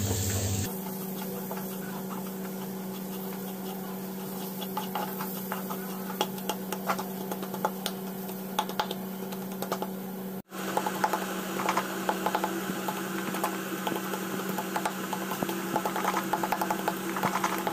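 Wooden spatula scraping and clicking against a pan as chopped tomatoes are stirred and mashed into a thick fried-onion masala, over a steady low hum. The scraping grows busier and louder after a brief break about ten seconds in.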